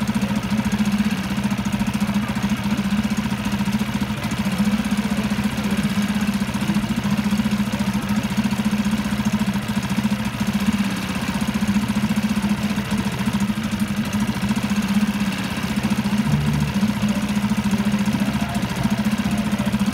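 Small Honda four-stroke outboard motor running steadily at an even speed.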